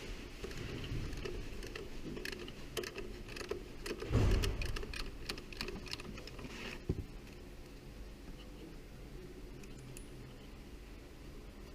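Metal tools or parts clinking and rattling as they are handled, with a dull thump about four seconds in and a sharp click near seven seconds, then quieter.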